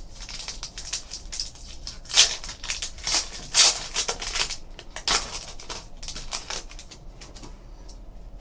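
A trading-card pack wrapper crinkling and tearing as it is pulled open and the cards are slid out: a run of dry crackles, loudest between about two and four seconds in, easing off near the end.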